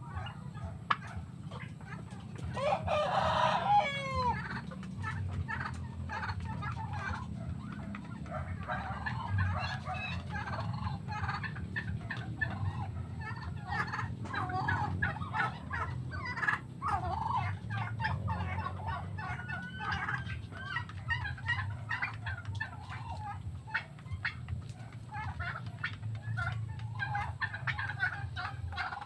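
Farmyard poultry flock, domestic turkeys among them, calling. One loud drawn-out call about three seconds in, then a steady run of short clucks and chirps.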